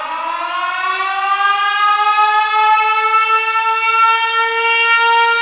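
One long horn-like note that slides up in pitch over the first second or so, then holds steady and swells louder.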